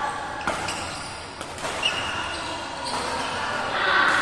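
Badminton rally in a large echoing hall: a few sharp racket strikes on the shuttlecock, the clearest about half a second and about two seconds in, with a short shoe squeak on the court. Voices in the background grow louder near the end.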